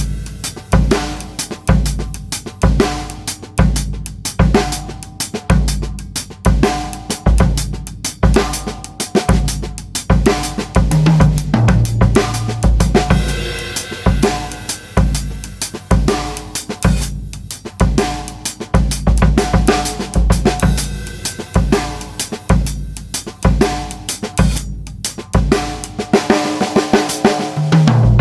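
Pearl Midtown compact drum kit (16-inch bass drum, 13-inch snare, 10- and 13-inch toms, Evans heads) played with maple sticks, recorded without EQ: a steady groove on bass drum, snare, hi-hat and ride cymbal. Short tom fills, stepping down in pitch, come about eleven seconds in and again near the end.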